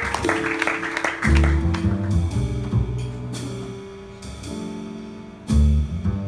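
Live jazz combo playing a slow ballad: piano chords and deep upright double bass notes, with soft drum and cymbal work that fades out in the first second or so. The music thins out, then a strong low bass note enters near the end.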